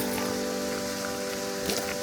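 Soft background music of long held notes over the steady rushing hiss of a waterfall.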